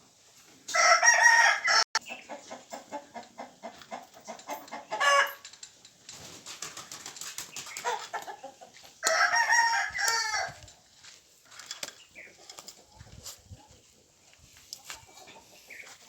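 A rooster crows loudly, about a second in and again about nine seconds in, with a shorter call around five seconds in.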